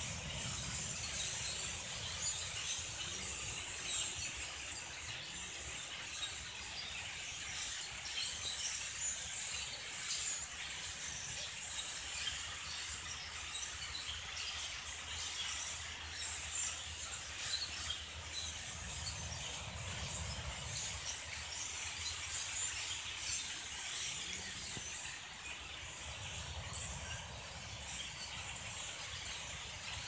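Huge flock of blackbirds chattering all at once: a dense, unbroken din of countless small high chirps and squeaks. A low rumble rises under it twice, in the second half.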